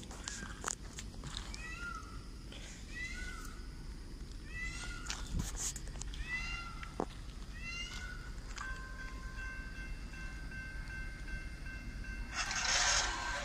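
A run of short, arching animal calls, each with several overtones, repeated at irregular intervals about a second apart. Later a steady high tone sets in, and near the end there is a brief loud rush of noise.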